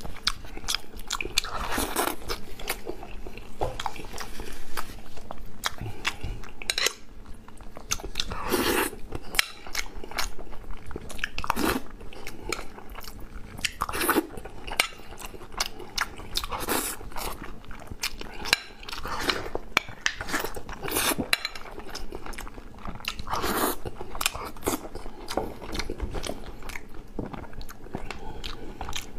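Close-miked eating: a person chewing and biting mouthfuls of saucy crayfish tails and rice, with crunching and many small wet mouth clicks, and a louder mouthful every two to three seconds.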